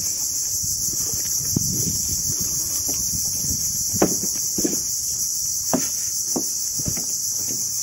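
Steady high-pitched drone of an insect chorus, unbroken throughout, with scattered soft footsteps from someone walking.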